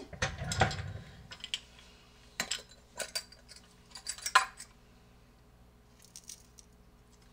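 Kitchen clatter: a scattering of sharp clinks and knocks as containers and utensils are handled on the counter, the loudest about four seconds in, tailing off to a few faint ticks.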